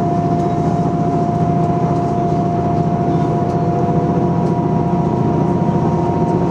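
Diesel railcar running at steady speed, heard from inside the passenger car: a steady engine and wheel rumble with a steady high whine above it.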